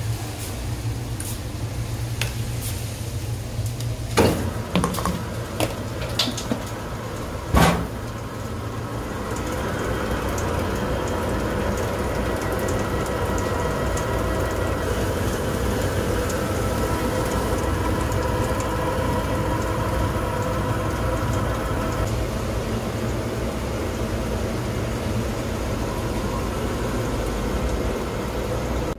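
Electric rice mill running with a steady motor hum. A few sharp metal knocks come in the first eight seconds. After that a steadier grinding whir sets in as soaked rice is milled into flour.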